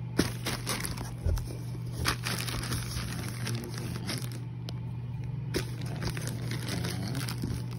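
Cardboard box flaps and a plastic mailer bag being handled: irregular rustling and crinkling with scattered sharp clicks and crunches, the sharpest near the start, over a steady low hum.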